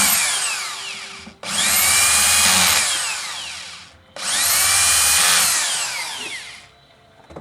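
Electric drill-driver running screws in, in three runs. One is already going and stops about a second in, then two more follow. Each spins up fast to a high steady whine and winds down with a falling pitch when the trigger is let go.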